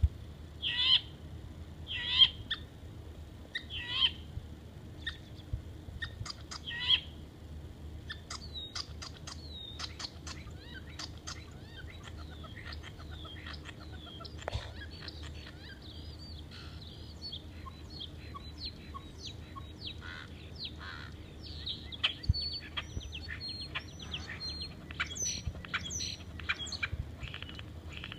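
Starling singing a mimicry-filled song: a few loud harsh calls spaced a second or two apart, then from about eight seconds in a fast medley of clicks, rattles and whistled phrases, with high whistles near the end.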